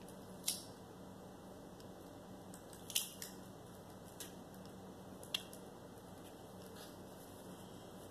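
Shell of a hard-boiled egg being cracked and peeled by hand: a few short, sharp crackles, the loudest about half a second and three seconds in, over a faint steady hum.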